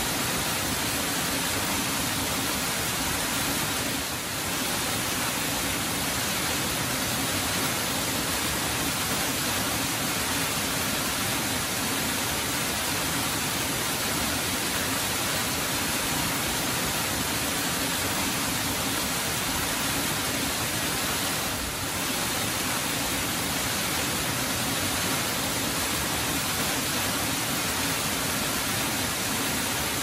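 Small waterfall cascading steadily over rocks into a pool: a continuous even rush of falling water, dipping slightly in loudness twice.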